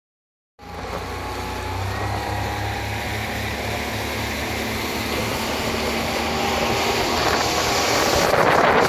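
Speedboat engine running steadily at speed, starting about half a second in and slowly growing louder. Near the end, wind rushing on the microphone rises over it.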